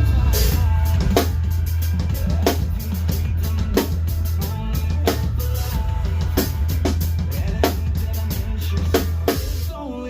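Drum kit played along to a heavy rock track, with the snare landing about every 1.3 seconds over heavy low guitars and bass. Shortly before the end the heavy low end drops away and the track thins out.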